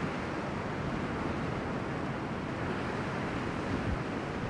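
Steady rush of breaking surf mixed with stiff offshore wind buffeting the camera's microphone.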